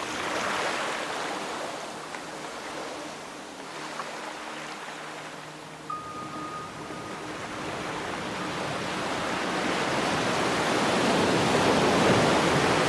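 Ocean surf washing in, easing off in the middle and then swelling to its loudest near the end as a wave comes in. A faint low steady drone sits underneath, and a brief thin tone sounds about halfway through.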